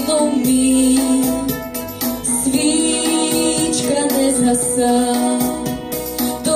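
Female voice singing a Ukrainian song over an instrumental backing track, holding long, slightly wavering notes.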